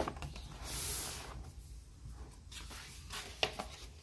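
Large glossy photobook pages being turned by hand: a soft paper swish about a second in, then a brief crisp rustle past the three-second mark.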